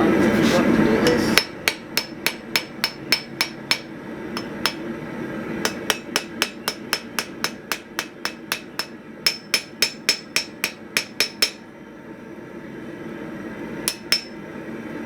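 Hand hammer striking steel flat stock on an anvil, each blow with a bright metallic ring: a short run of strikes at about four a second, a pause, a longer run, then two last blows near the end. A steady roar cuts off suddenly about a second and a half in, just before the hammering starts.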